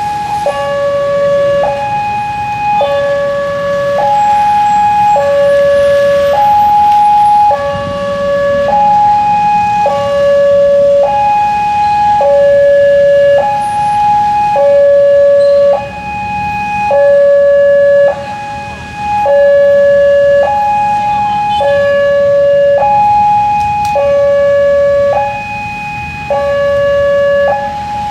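Railway level-crossing warning siren alternating steadily between a low tone (between C#5 and D5) and a high tone (about G#5), each held for about a second. The low tone is the louder. It signals an approaching train at the crossing. Underneath is a low hum of passing motorcycle traffic.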